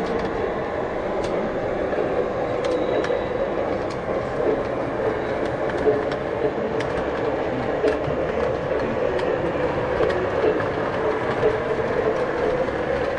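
O scale model train running along its shelf track, heard from on board: a steady rolling and motor running noise with scattered sharp clicks as the wheels pass track joints.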